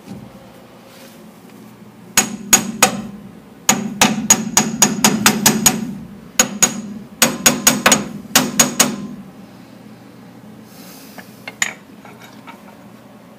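Hammer striking steel on a Dana 44 front axle's steering knuckle: sharp, ringing metal-on-metal blows in three runs, a short run of about four, then two longer runs of about a dozen quick strikes each, stopping about nine seconds in.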